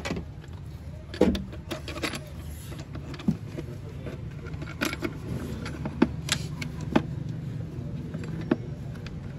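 Plastic clicks and knocks as a Suzuki Alto's air filter housing lid and intake duct are handled and pressed back into place, the sharpest knock about a second in, over a steady low hum.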